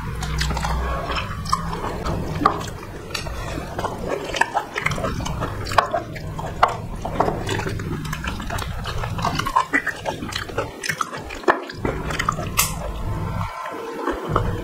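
Close-miked eating by hand: wet squelching as rice and curry are mixed with the fingers, and chewing with lip smacks, many short sharp clicks and wet smacks throughout.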